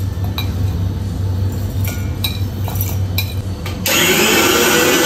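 A few sharp clinks of a steel or glass utensil over a steady low hum. About four seconds in, an electric mixer grinder starts and runs loudly with a whining motor, grinding the roasted coconut.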